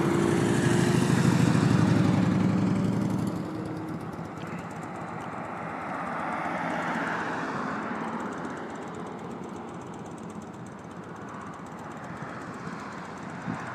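Motorcycle engine running steadily close by, fading out after about three seconds. A car then passes, its tyre and road noise swelling and dying away around the middle.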